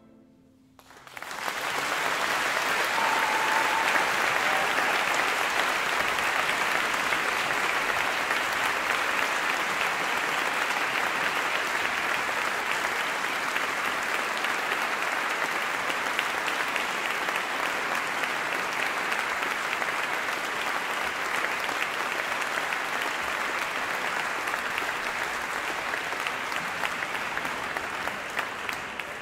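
Concert audience applauding. The clapping starts about a second in after a brief hush, holds steady, and dies away near the end.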